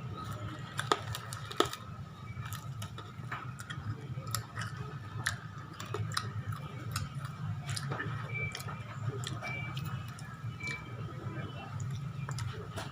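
Spicy keripik chips being chewed close to the microphone: irregular, sharp crunches over a steady low hum.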